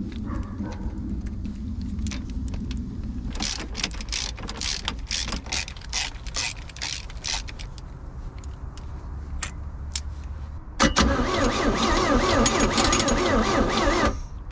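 A run of sharp clicks, then a starter motor cranking an OMC Cobra 3.0L four-cylinder marine engine for about three and a half seconds. The engine turns over steadily but never fires, and the cranking stops abruptly. The engine has no spark.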